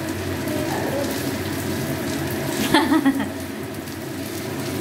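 Sweet corn kernels sizzling in hot oil in a non-stick pan while being stirred with a spoon, with a brief clatter of the spoon against the pan a little after halfway.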